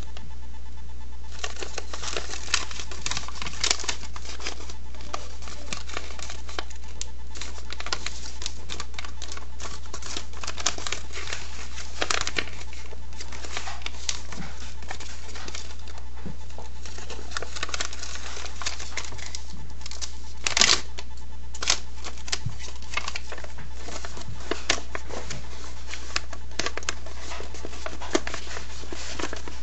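A sheet of paper being folded and creased by hand: a run of crisp rustles and crinkles, with a sharper crackle about two-thirds of the way through, over a steady low hum.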